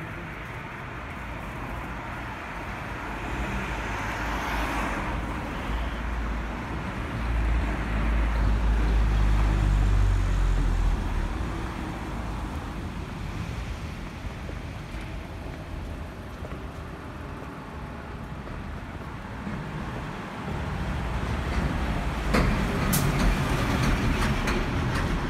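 City street traffic noise: vehicles passing on the road, with a louder low rumble from about seven to eleven seconds in and again near the end.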